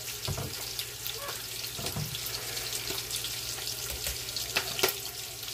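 Bacon sizzling and crackling as it pan-sears in the pot of a Ninja Foodi Possible Cooker Pro, with a couple of louder spattering pops near the end. Two soft knocks early on.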